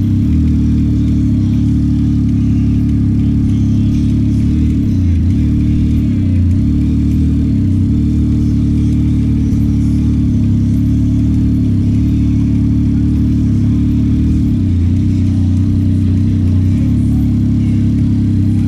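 Yamaha MT-09 SP's inline three-cylinder engine running at a steady cruise while riding, a continuous low rumble with small shifts in pitch.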